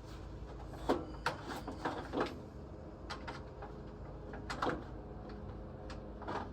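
Irregular clicks and knocks of hand tools and metal parts being handled during repair work, over a steady low hum.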